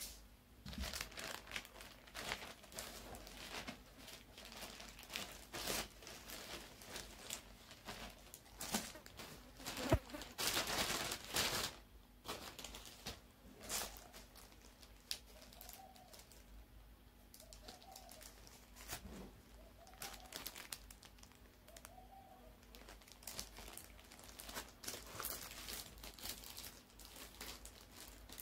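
Plastic packaging crinkling and rustling as it is handled: a thin plastic courier mailer and the clear plastic sleeve of a packet of art brushes. The crackling comes in irregular bursts and is loudest about ten to twelve seconds in.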